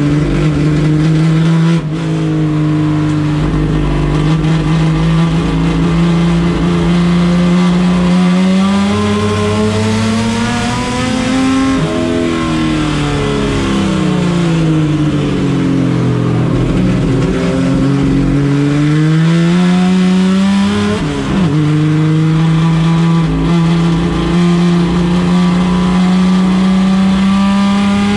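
Chevrolet Opala race car engine running hard. Its pitch holds steady at first, climbs to a peak about 12 s in, falls back over the next few seconds, then climbs again. There is a short break in the sound about 21 s in, after which the pitch rises slowly.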